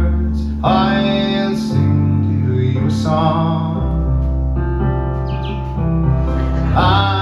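Slow folk ballad played live: a man sings long held phrases over sustained keyboard chords, with guitar.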